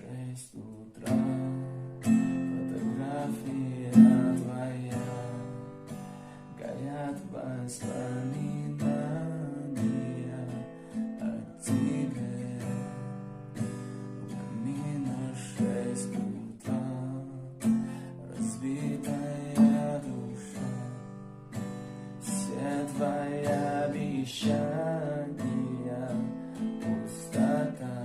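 Acoustic guitar playing a slow, strummed accompaniment.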